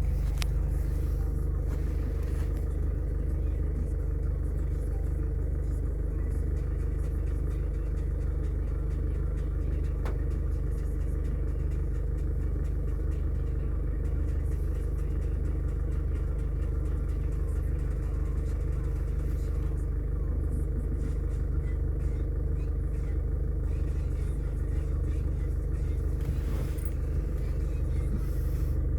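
A steady low rumble with a hum that does not change in level, and a couple of faint, brief crackles.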